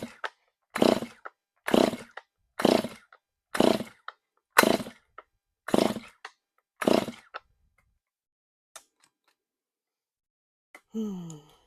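Stihl MS 291 chainsaw being pull-started: eight quick pulls of the recoil starter cord, about one a second, without the engine catching. The owner takes the failure to start for a flooded engine. A brief sound falling in pitch follows near the end.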